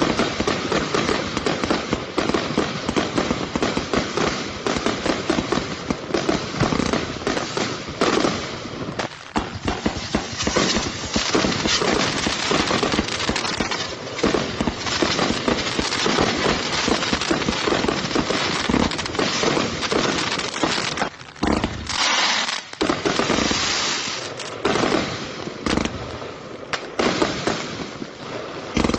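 A 36-shot consumer firework cake firing, a dense, rapid run of bangs and pops that thins briefly past two-thirds of the way through and then picks up again.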